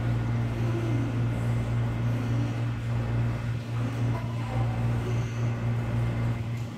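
Steady low machinery hum filling an indoor pool room, the kind made by the pool's air-handling or pump equipment.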